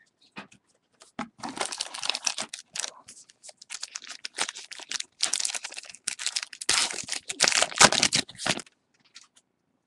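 Plastic wrapper of a 2013 Topps Gypsy Queen baseball card pack being torn open and crinkled by hand. The irregular crackling starts about a second in and stops shortly before the end.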